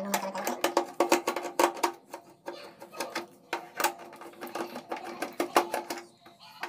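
Screwdriver undoing the screws in the plastic base of a mixer grinder: irregular clicks, scrapes and taps of the tool and the hard plastic housing being turned and handled, over a steady hum.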